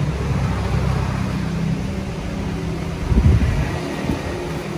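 A motor vehicle engine running with a steady low hum, and a brief louder rumble about three seconds in.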